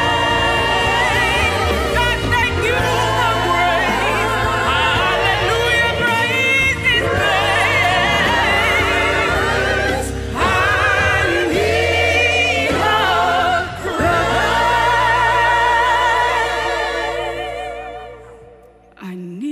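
Choir singing a sacred arrangement with vibrato over a sustained low accompaniment, the music fading out near the end.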